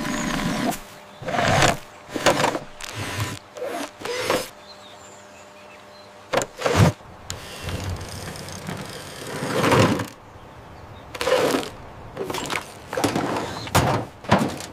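Cartoon sound effects for a small toy-like robot moving: a run of short mechanical whirs and whooshes, irregularly spaced, with brief gaps between them.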